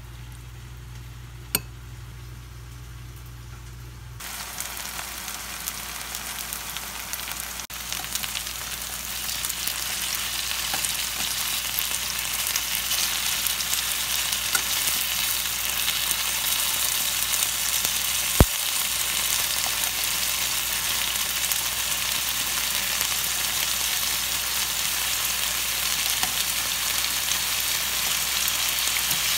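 Chicken pieces frying in oil in a nonstick pan, a steady sizzle that starts about four seconds in and swells over the next few seconds. A sharp click of metal tongs on the pan about two-thirds of the way through.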